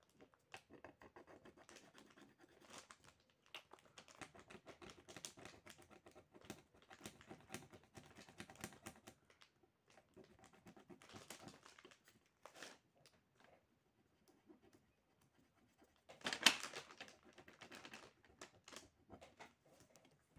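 Faint ASMR scratching: a white plastic stick scraping and tapping over a marker-coloured paper drawing in quick short strokes. There is a near-quiet pause before a louder burst of scraping about sixteen seconds in.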